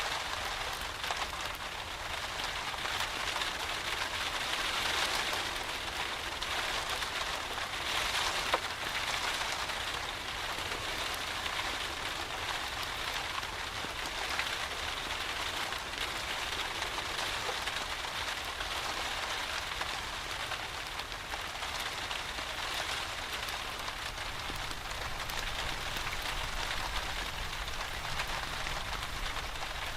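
Steady, even rain falling, with an occasional sharp pop from a crackling wood fire, the loudest about a third of the way in.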